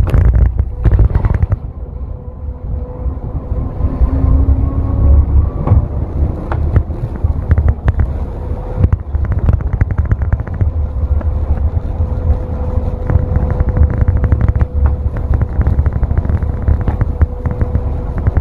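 Bus heard from inside the cab while it is driving: a steady low engine rumble with a tone that rises in the first few seconds, then a steady whine, and many small rattles and clicks from the interior fittings.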